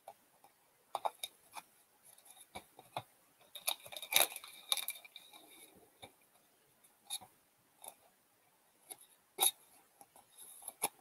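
Hockey trading cards being shuffled through by hand: faint, scattered clicks and slides of card stock against card stock, with a busier flurry about four seconds in.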